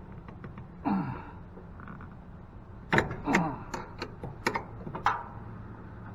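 Metal parts being handled while a machine table is dismantled for scrap: a scraping sound with a falling pitch about a second in, then a run of sharp metallic clinks and knocks from about three to five seconds.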